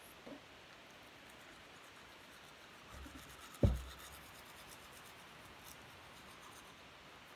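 Faint scratchy scrubbing of a manual toothbrush's bristles against teeth. One sharp low thump about halfway through is the loudest sound.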